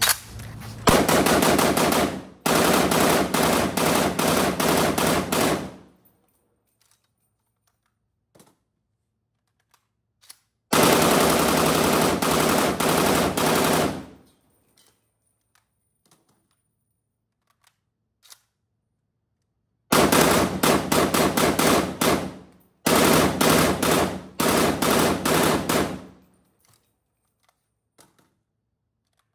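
POF CW39, a G3-pattern 7.62×51 mm rifle, firing on full auto in five long bursts of a few seconds each, with short pauses between them.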